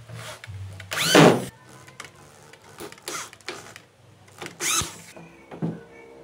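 Corded electric drill boring into a wooden frame, run in about three short bursts, its motor whine rising and falling with each. The first burst, about a second in, is the loudest.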